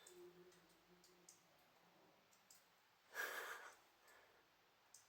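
Near silence with a faint low hum for the first couple of seconds. A person breathes out sharply about three seconds in, and there are a few faint clicks.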